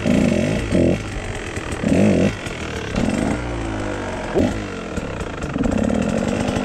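Two-stroke Husqvarna dirt bike engine revving hard in repeated bursts, its pitch climbing and dropping with the throttle, then settling into a steadier run near the end.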